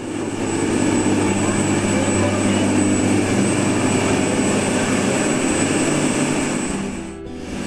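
Boat engine running steadily under a loud rush of wind and water, with a thin high whine above it. It dips briefly near the end.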